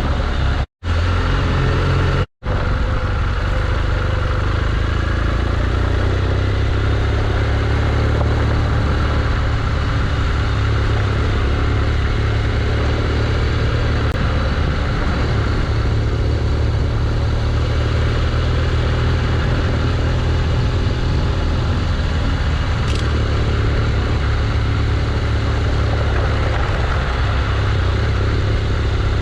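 BMW R1200GS Adventure's boxer-twin engine running steadily at an even low pitch, with road noise above it. The sound cuts out briefly twice near the start.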